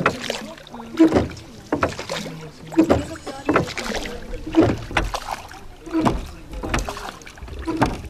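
Oars of a rowing boat working in a steady rhythm: a sharp wooden knock with a short creak at each stroke, the loudest about every two seconds with lighter knocks between.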